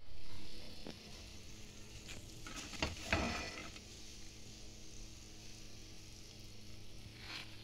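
Breaded chicken fries sizzling in shallow oil in a frying pan, with a wooden spatula scraping and knocking against the pan about three seconds in and again near the end.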